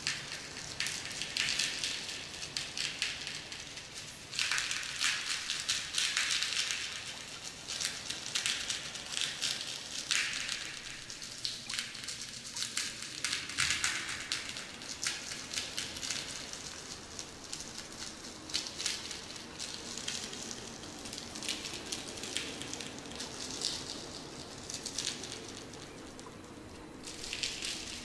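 Long fingernails tapping and scratching on a clear plastic box, a dense crackling patter that swells and fades every few seconds.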